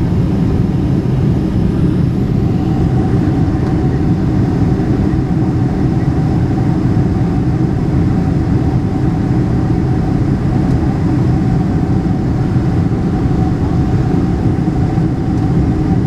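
Steady cabin noise inside a Boeing 747-400 in flight: the even drone of its four turbofan engines and the rush of air past the fuselage, heavy and low, with a faint steady whine.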